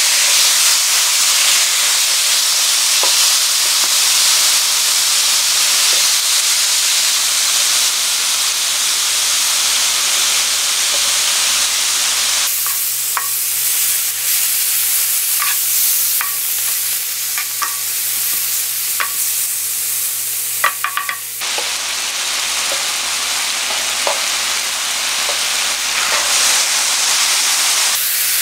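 Soy-marinated sliced duck meat sizzling on a hot electric griddle, a loud steady frying hiss that starts suddenly as the meat goes on. About halfway through, cooking utensils click against the griddle as the meat is turned.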